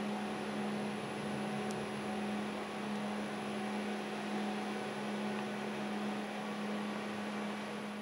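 Steady electrical hum: one low even tone with a faint high whine and a hiss over it, from running electrical equipment.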